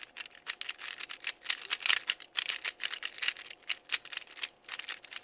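A Cyclone Boys FeiJue magnetic 3x3 speedcube being turned rapidly to scramble it: a fast, unbroken run of sharp plastic clicks and clacks from the layers snapping into place.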